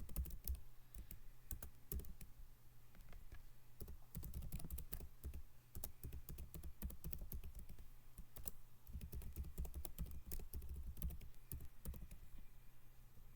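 Laptop keyboard typing in irregular runs of keystrokes, with brief pauses between runs, over a low steady hum.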